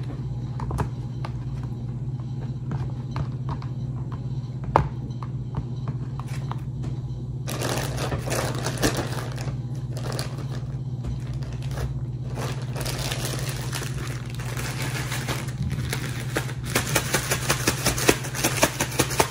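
Kitchen food-prep sounds over a steady low hum: scattered small clicks and one sharp knock about five seconds in, then a stretch of hissing noise from about the middle, then a quick, even run of knife taps on a cutting board near the end.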